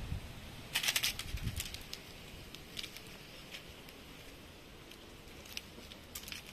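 Dried okra pods, bound with thread, rustling and crackling as they are handled in the hand, in short scattered bursts, the biggest about a second in. A couple of low thumps come in the first second and a half.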